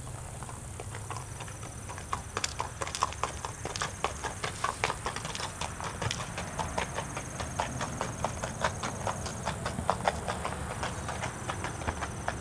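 Hooves of a Tennessee Walking Horse striking a gravel drive in a quick, even gaited rhythm, several hoofbeats a second.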